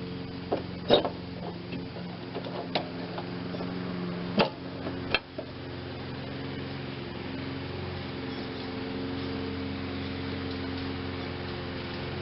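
Sharp clicks and knocks of a drive belt being pried onto a mower deck's spring-loaded idler pulley, about half a dozen in the first five seconds, loudest about a second in and again past four seconds. A steady low hum runs under them.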